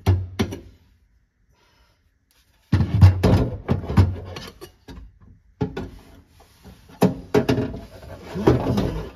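Irregular knocks, clunks and rattles of an air cleaner and aluminium intake tube being handled and worked into a car's engine bay. The sounds stop for about two seconds near the start.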